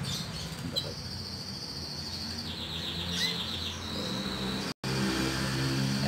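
Domestic canary singing a long, high trill that turns into a faster, lower rolling trill partway through, over a low hum. The sound cuts out for an instant near the end.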